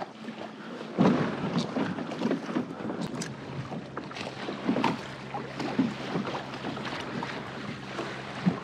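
Wind buffeting the microphone and water splashing irregularly against a kayak hull on choppy open sea.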